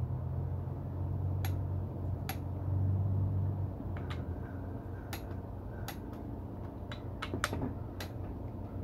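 Click-type torque wrench clicking again and again as it is set on the ARP cam gear bolts of an LS engine, each click showing a bolt has reached its 25 ft-lb setting. A low drone runs under it through the first few seconds.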